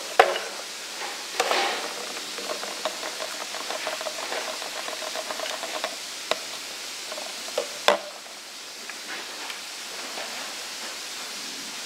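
A few sharp knocks and clicks of an empty plastic water bottle being stood back up on a wooden table and a Nerf blaster being handled, over a steady hiss. The loudest knocks come just after the start and about eight seconds in.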